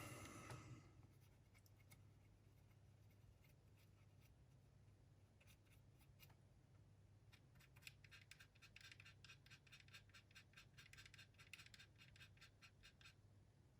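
Faint, quick scratching or rubbing strokes, several a second, starting about halfway through and lasting about five seconds, over a low steady hum.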